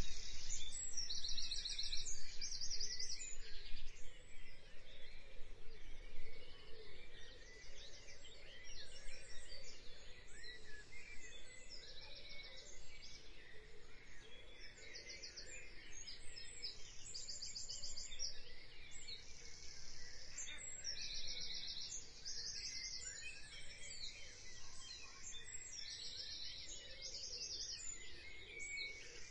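Birds chirping and trilling over a steady outdoor background hiss: short, high-pitched pulsed trills repeat every second or two, starting abruptly and loudest in the first few seconds.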